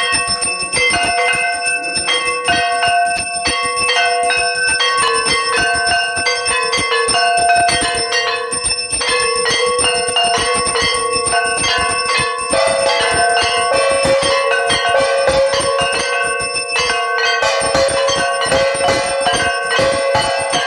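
Hindu temple bells and a brass gong struck rapidly and without pause during an aarti: a dense clatter of quick strikes with ringing metallic tones over it.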